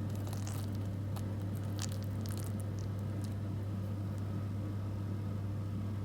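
Crisp breadcrumb coating of a baked cordon bleu crunching in short crackles, over a steady low hum.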